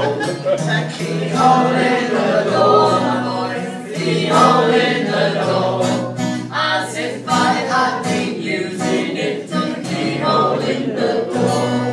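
A folk song sung by several voices together, over held low accompanying notes.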